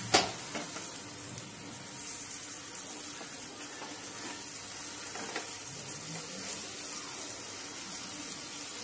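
Onion, tomato and spice masala sizzling steadily in a nonstick pan while a silicone spatula stirs it, with a little water just added to cook the spices down. A single sharp knock sounds right at the start.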